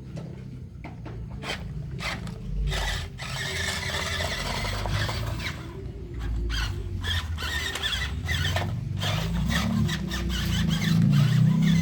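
Small electric motors and gearboxes of radio-controlled construction models whining as they work, with gritty scraping and crunching of sand. The whine grows louder and rises in pitch near the end.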